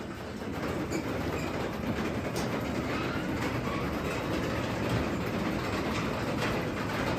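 Craftsman DC belt-drive garage door opener running and raising the door: a steady mechanical rumble of the motor and the door rolling in its tracks, with a light rattle.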